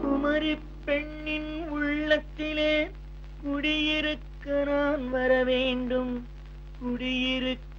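A 1960s Tamil film song in a passage without lyrics: a string of short melodic phrases with pitch slides, separated by brief gaps, in a wordless vocal line, over a faint steady low hum from the old recording.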